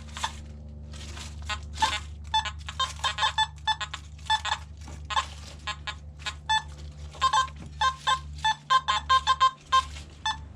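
Nokta Makro metal detector giving many short beeps of shifting pitch as its coil is swept over the ground, the tones coming thicker in the second half as it picks up buried metal. A steady low hum runs underneath.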